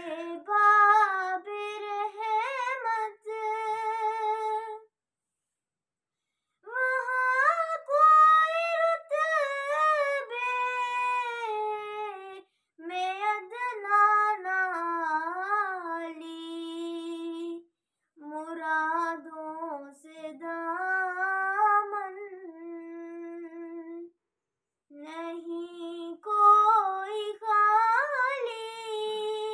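A girl singing a naat, an Islamic devotional hymn, solo and unaccompanied, in long ornamented phrases with brief silent pauses between them.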